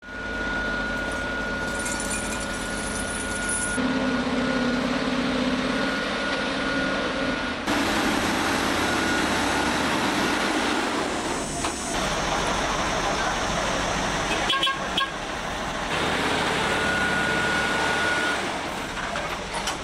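Heavy vehicle running with loud engine and road noise, and a steady high horn-like tone that sounds through the first few seconds and again near the end.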